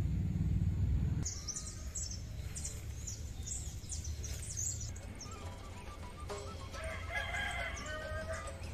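Small birds chirping in short high calls, then a rooster crowing from about six seconds in. The first second holds a low rumble that stops at a cut.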